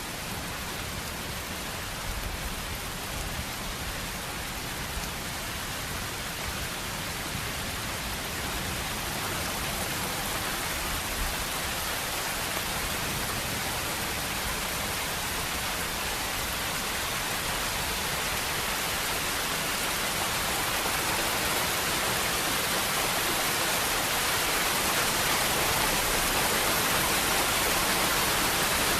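Heavy rain falling, a steady, even hiss that slowly grows louder.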